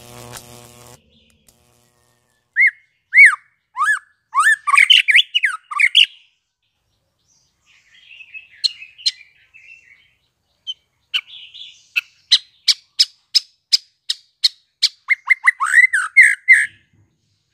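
White-rumped shama (murai batu), a young male just out of its spotted juvenile plumage, singing: loud slurred whistles, then a scratchy chatter, then a run of sharp clicking notes at about three a second that speed up, ending in a quick burst of down-slurred whistles.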